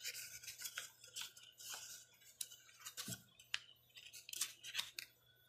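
A sheet of paper being folded by hand: faint, irregular rustles and small crisp clicks as the paper is moved and the creases are pressed down.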